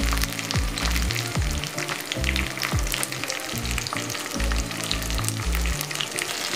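Masala-coated quail pieces frying in hot oil with curry leaves in a pan: a steady sizzle full of small crackles and pops. Background music with a deep bass line and kick drum plays underneath.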